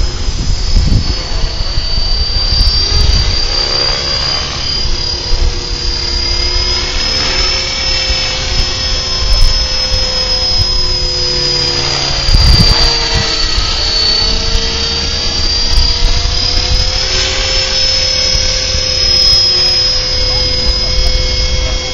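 Radio-controlled model helicopter in flight, its motor and rotors making a steady high whine whose pitch drifts slightly up and down as it manoeuvres, over a low rumble.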